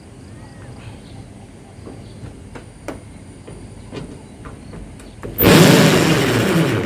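Cordless drill running into corrugated roof sheeting for about a second and a half near the end, its pitch falling as it runs, after a few light knocks and taps.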